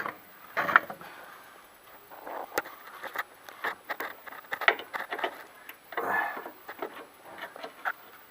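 Pliers gripping and turning a Renault Logan's front anti-roll bar link, whose bolt has sheared off: irregular metal clicks, taps and short scrapes, with a longer scrape about six seconds in.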